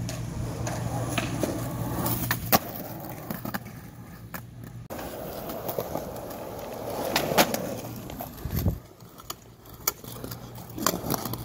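Skateboard on Spitfire Formula Four wheels rolling over concrete, the wheels giving a steady rolling noise, with several sharp clacks of the board hitting the ground during tricks.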